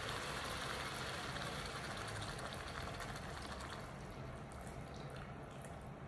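Shrimp stock poured from a glass measuring cup into a hot electric skillet of cooking meat and shrimp, a steady hiss of liquid hitting the pan. The hiss fades over the second half.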